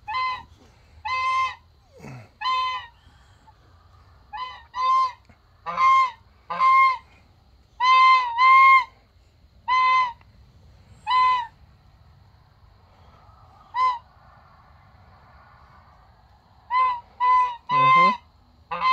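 Domestic geese honking: a string of short, nasal honks, roughly one a second, with a few seconds' lull in the second half and then three quick honks near the end.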